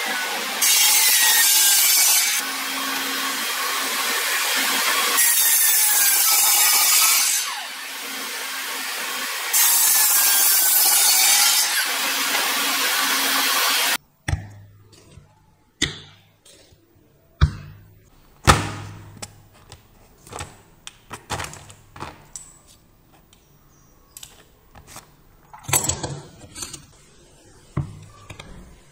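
Electric miter saw cutting a wooden board: three loud cuts through the wood with the motor running between them. It stops abruptly about halfway through, followed by scattered light knocks and clicks of wooden panels and electronic parts being set down on a table.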